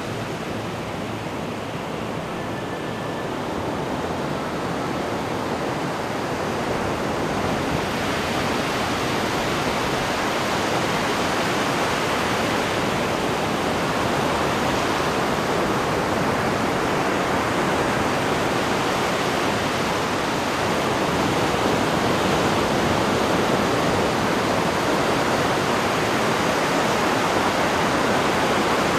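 Steady wash of ocean surf breaking on a beach, growing a little louder over the first several seconds.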